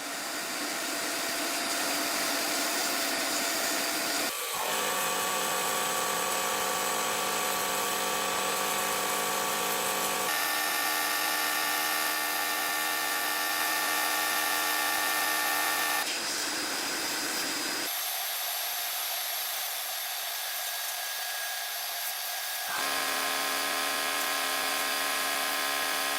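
Small high-speed electric power tool running steadily with a whine. Its pitch and tone jump abruptly several times, as if from separate takes of the tool at different speeds or on different parts.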